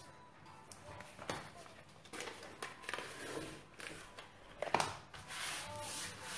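Fingers rubbing masking tape down along the edge of a sheet of cotton watercolour paper, with soft rustles as the paper is handled and a few light clicks, the sharpest about three-quarters of the way through.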